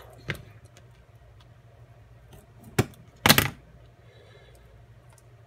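Small handling noises at a workbench: a sharp click just after the start, another sharp click nearly three seconds in, then straight after it a short, louder scrape, the loudest sound here.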